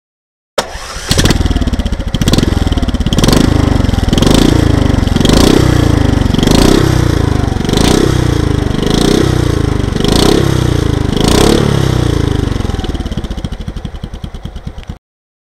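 LML Star four-stroke scooter's single-cylinder engine running through a GPR aftermarket exhaust, blipped about once a second some ten times, each rev rising quickly and falling back. The revving eases off near the end before the sound cuts off abruptly.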